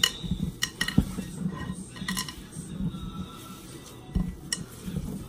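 Hands kneading soft cassava-starch biscuit dough in a glass mixing bowl: the dough being worked and squeezed, with a few sharp, irregular clinks as the glass bowl is knocked.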